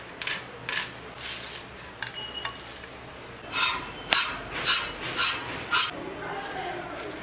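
Pointed gourds (potol) being sliced by hand on a boti, a curved floor-mounted blade: a few cuts in the first second or so, then a run of five louder cuts about two a second in the second half.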